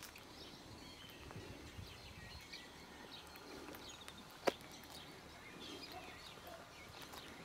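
Faint scattered bird chirps and calls, with one sharp click about four and a half seconds in.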